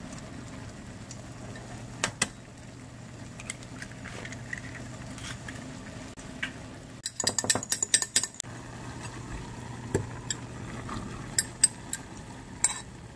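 Dishes and cutlery clinking: a couple of clinks about two seconds in, a busy run of them a little past the middle, and scattered clinks near the end, over a steady low hum.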